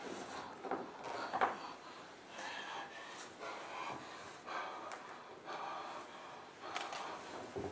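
A person breathing hard and making short, breathy, animal-like vocal sounds in irregular bursts, roughly one a second.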